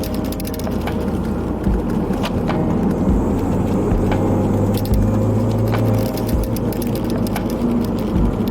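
Ford Focus ST engine and road noise heard from inside the cabin while driving, with repeated clicking rattles from loose camera-strap clips bouncing on a suction-cup mount.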